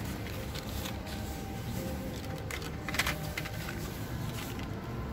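Shop ambience: a steady low hum with faint background music, a few small handling clicks and one sharp click about three seconds in.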